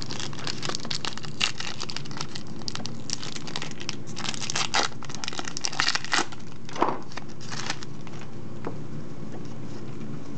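Foil wrapper of a Pokémon TCG booster pack crinkling and tearing as it is pulled open by hand, with dense crackles for about eight seconds before it mostly stops.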